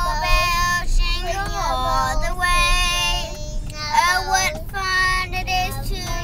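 A high, child-like voice singing a tune, with held notes and sliding pitches.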